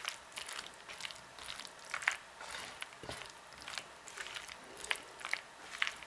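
Silicone spatula stirring elbow macaroni dressed with mayonnaise and sour cream in a bowl. Irregular short scrapes and squishes, several a second.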